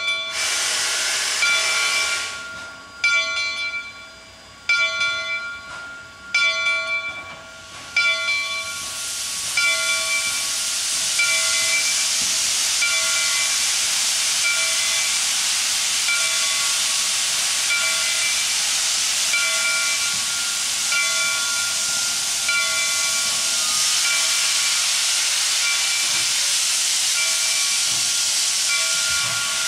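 Steam locomotive's bell ringing in steady, evenly spaced strokes, a little faster than one a second. A short burst of steam hiss comes at the start, and from about eight seconds in a loud, continuous hiss of escaping steam runs under the bell.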